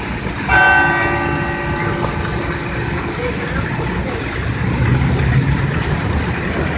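Cathedral church bell struck once about half a second in, its ringing tones fading over a second or so, over a steady low rumble.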